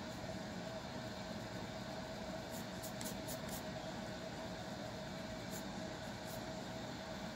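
Fingernails scratching a dry, flaky scalp, heard as short crackly scratches in a quick run of about five about two and a half seconds in and two more near six seconds, over a steady background hum with one steady tone.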